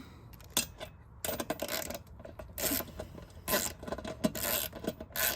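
Ratchet wrench worked back and forth in short, irregular strokes, its pawl clicking, tightening the taillight mounting bolt.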